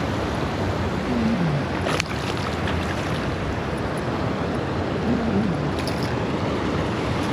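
Steady rush of water from a small waterfall, with a sharp click about two seconds in.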